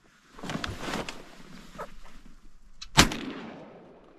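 A single shotgun shot about three seconds in, its report trailing off over the open marsh. It follows a couple of seconds of rustling and shuffling as the hunter moves among the reeds in the kayak.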